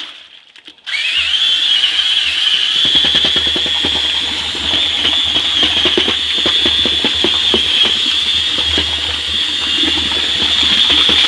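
Cordless drill turning a paddle mixer through thick corn mash in a plastic barrel. It stops briefly, then starts again about a second in, its motor whine rising to full speed and then running steadily over an irregular churning clatter.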